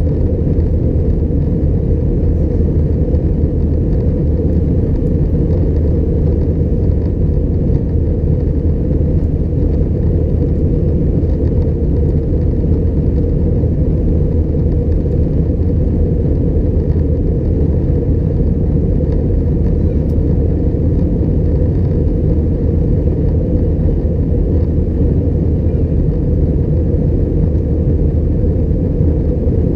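Steady low roar inside the cabin of an Airbus A320-211 in flight: its CFM56 engines and the airflow over the fuselage, with no change in pitch or level.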